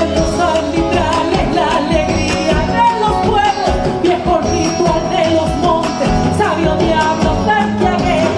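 Argentine folk music playing.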